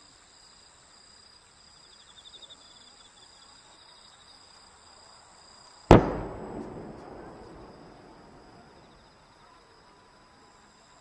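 Firework aerial shell launched from its mortar tube: one sharp, loud bang about six seconds in, echoing and dying away over the next couple of seconds.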